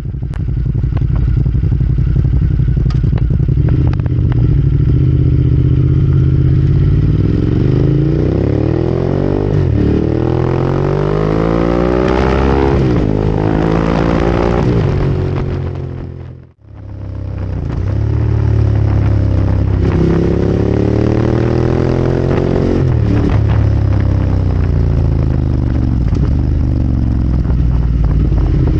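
Ducati Monster 1200 R's 1198 cc L-twin engine heard close at its full Termignoni exhaust: running steadily at first, then accelerating through the gears, the pitch rising and falling back at each shift several times. The sound drops out for a moment about halfway through, then rises through the gears again.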